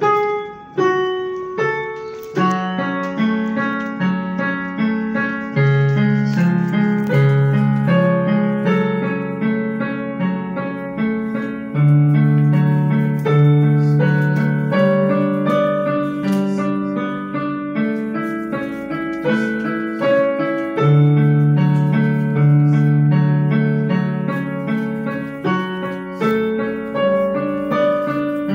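Electronic keyboard played with a piano sound, a continuous run of melody and chords over a moving bass line, working properly after repair.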